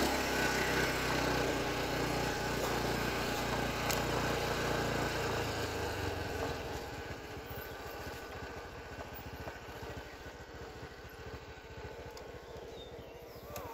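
A small engine running steadily, growing fainter over the second half.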